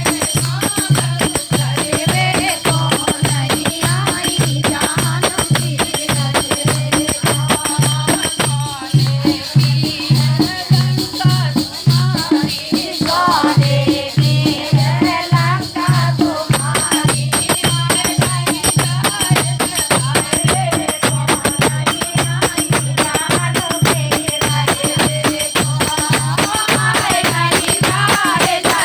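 Hindi devotional folk song (bhajan) sung over a drum beating a steady rhythm about twice a second and shaken jingling percussion like a rattle or tambourine.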